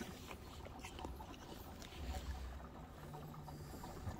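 Faint gurgle of gasoline pouring from a jerry can into a Toyota 4Runner's fuel filler, over a low rumble.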